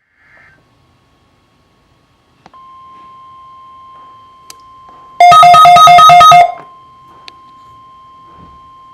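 NOAA Weather Radio's steady 1050 Hz warning alarm tone, the alert signal that switches on weather receivers, comes in about two and a half seconds in and holds. About five seconds in, a much louder two-tone electronic alert beeps rapidly back and forth between a low and a high pitch for just over a second and then stops, while the steady tone carries on.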